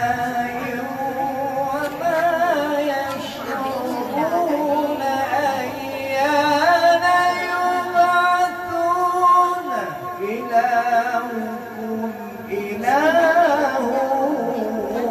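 A man reciting the Quran in tarannum, the melodic style of recitation, in long held notes that are ornamented and slide up and down in pitch. One phrase rises steeply near the end.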